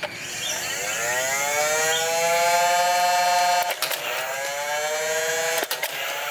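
Battery-powered toy blaster's electric motor whirring. It spins up, rising in pitch, then holds steady, and is broken by a sharp click about four seconds in and again near the end.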